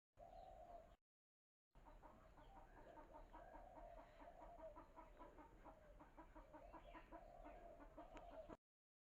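Faint, rapid clucking of a chicken, a quick even run of short notes at about four or five a second, cut off abruptly near the end.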